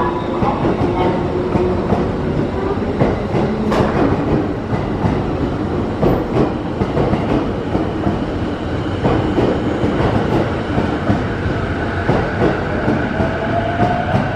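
JR East 211 series electric train pulling out along the platform and passing close by, its wheels clicking over rail joints as it gathers speed, with a faint rising whine in the second half.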